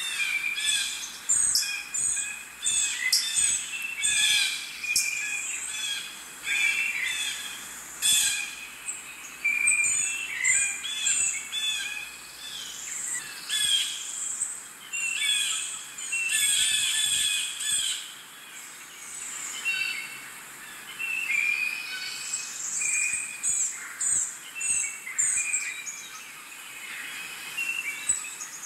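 Several birds chirping and calling over one another, a dense run of short, high-pitched calls and trills.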